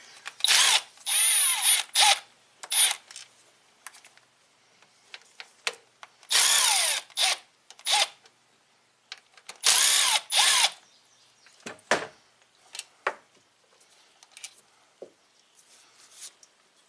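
Cordless power tool run in about six short bursts, its motor whirring up and down in pitch, backing out the thermostat housing bolts. Scattered light clicks and knocks of handling follow in the later part.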